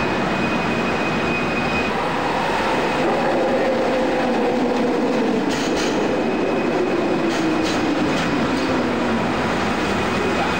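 Monorail train running with a steady rush of noise and a motor whine that falls steadily in pitch over several seconds, as the train slows into a station; a few light clicks come about halfway through.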